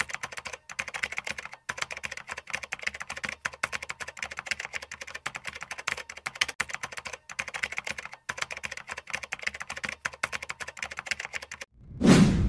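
Keyboard typing sound effect: a fast, steady run of keystroke clicks with a few short breaks, played as the text types itself out. Near the end the clicking stops and a whoosh swells up into music.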